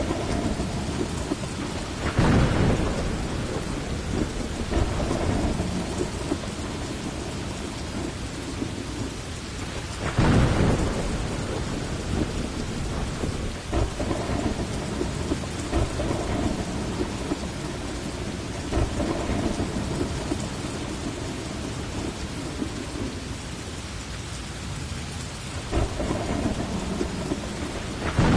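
Heavy rain falling steadily during a thunderstorm. Two loud thunderclaps come about two seconds and ten seconds in, another rise comes near the end, and low rumbles of thunder run between them.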